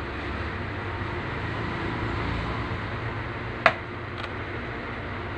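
Steady background hum and hiss, with one sharp click about three and a half seconds in and a fainter click shortly after.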